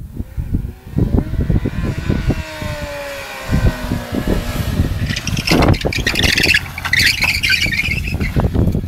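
Suzuki Bandit 600 motorcycle's inline-four engine approaching, its pitch falling steadily as it comes in and slows, then louder and rougher close by as it pulls up and stops.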